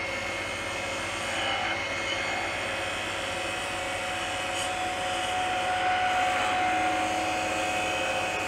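Wood lathe running with a steady motor hum and a few high, fixed tones, while a small hand tool makes light cuts on the spinning maple spindle.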